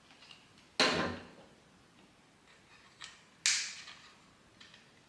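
Sharp clicks and taps of the plastic clip and parts of a Joby Wavo Air wireless microphone kit being handled: two loud clicks, about a second in and about two and a half seconds later, with a few fainter ticks.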